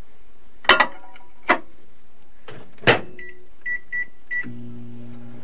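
A pie pan knocks into a microwave oven and the door shuts with a clunk. Four short beeps follow as the cooking time is keyed in on the keypad, and about four and a half seconds in the oven starts running with a steady low hum.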